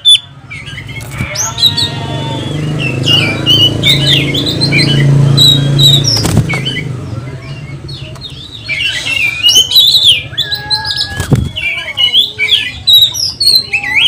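Oriental magpie-robin chirping and calling in short, sharp phrases. A low motor hum swells and fades underneath in the first half.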